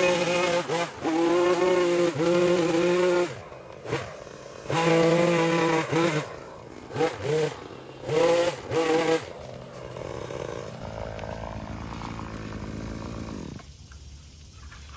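Small two-stroke engine of a handheld power tool revved hard in repeated bursts of about a second, dropping back between them. About ten seconds in it settles to a lower, quieter steady running.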